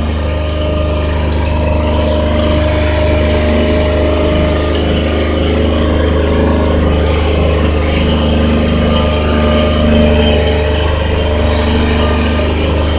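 Engine of a self-propelled turf sprayer running steadily as it drives across a sloped green, a constant low drone with a held pitch.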